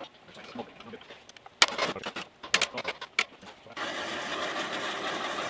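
A few sharp metal clinks and knocks of tools at the brake, then, about four seconds in, an aerosol spray can hissing steadily at the new brake caliper.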